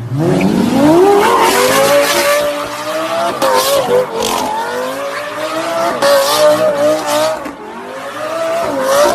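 A Lamborghini's engine revs up sharply in the first second and is then held at high revs, rising and dipping, with tyres squealing and screeching under it as the car drifts or does a burnout.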